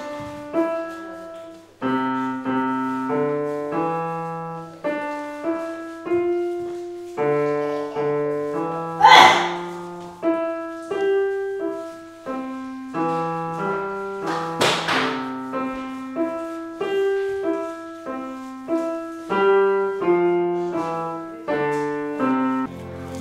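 A child playing a slow, simple melody on a Yamaha piano, note by note with short pauses. Two brief thumps cut across it, the louder about nine seconds in and another near fifteen seconds.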